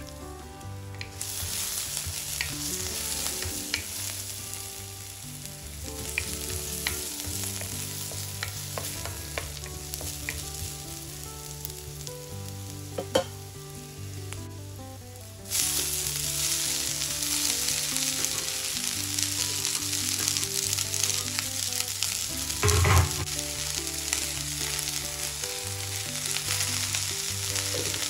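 Crushed garlic and dried red chillies sizzling in hot mustard oil in a wok, with a few sharp spatula clicks. About halfway through the sizzle turns suddenly louder and fuller as moringa leaves go into the hot oil, and a short loud clatter of stirring comes a few seconds later.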